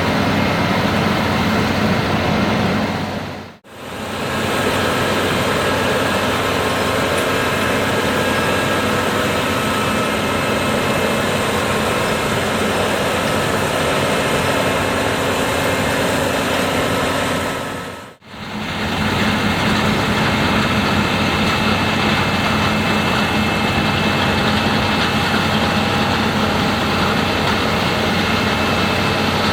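Case IH Axial Flow AF10 combine harvester running steadily while threshing wheat, a loud even machine sound with several constant tones. It fades out and back in twice, about four and eighteen seconds in.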